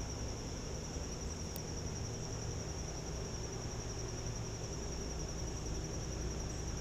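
Insects trilling steadily at one high pitch, with a faint low rumble of background noise beneath.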